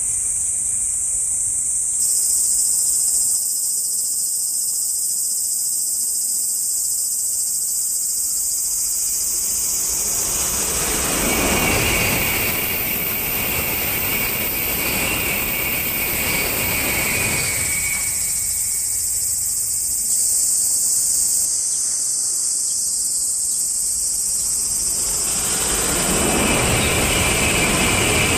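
Insects, most likely cicadas, shrill steadily at a high pitch throughout. A Shinkansen train runs past on the viaduct with a rising and falling rush from about ten to eighteen seconds in, and another begins to rush in near the end.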